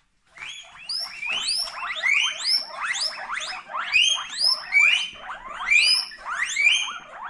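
Guinea pig wheeking: a long run of rising squeals, about two or three a second.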